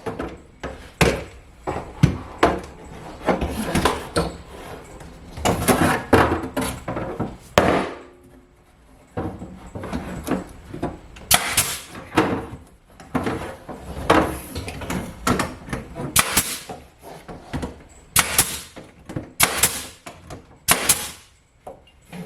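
Pneumatic nail gun firing over and over, sharp shots about a second apart with a pause near the middle, tacking a wall panel in place.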